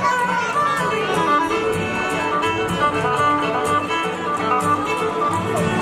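Instrumental floor-exercise music playing, with a steady beat.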